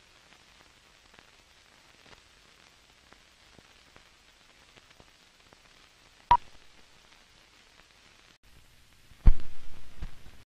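Faint crackle with scattered light ticks. A sharp click with a brief beep-like tone comes a little past six seconds. About nine seconds in, a loud low thump flutters away over about a second, then the sound cuts off suddenly.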